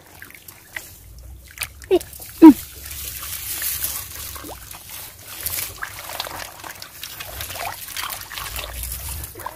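A hand groping and sloshing in shallow muddy water in a paddy-field hole, with small splashes and trickles. About two seconds in come two short falling cries, the second the loudest sound here.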